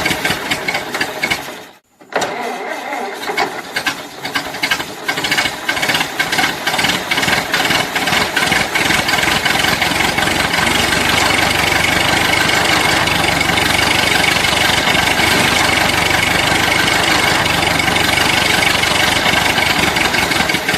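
Old car engine running, cutting out briefly about two seconds in, then cranking and sputtering unevenly for a few seconds before it catches and runs steadily.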